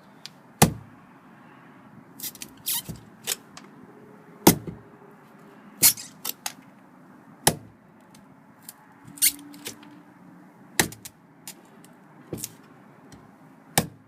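Tip of a Cold Steel Recon 1 tanto folding knife stabbed repeatedly into wood: about half a dozen sharp, loud strikes a second or more apart, with lighter knocks and clicks between as the blade is worked free.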